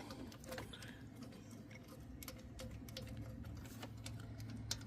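Faint, scattered metal clicks and ticks of a socket and extension being turned by hand on a loosened starter mounting bolt.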